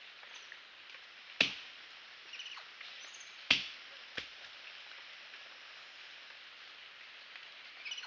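Three sharp knocks, the first two loud and about two seconds apart, the third quicker and softer, over a steady hiss of rainforest background with a few short, faint chirps.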